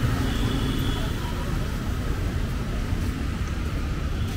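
Steady low rumble of outdoor street ambience, even throughout, with a faint high tone about half a second in.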